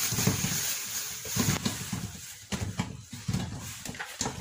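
Small lemons tipped from a plastic colander into a steel pot, knocking and thudding against the metal and each other in uneven bursts.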